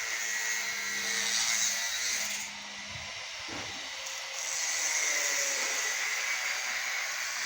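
Power tool working on steel pipe: a steady, noisy whir whose top end drops away for about two seconds in the middle, then picks up again.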